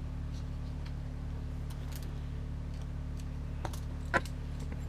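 Light scattered clicks and taps of small plastic kit parts and a screwdriver being handled on a workbench, with one sharper click about four seconds in, over a steady low hum.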